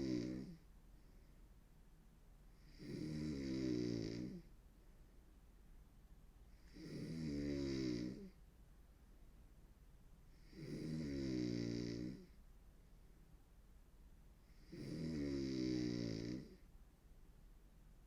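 A woman snoring hard: a long pitched snore about every four seconds, each lasting about a second and a half. There are four full snores, plus the tail of one at the very start.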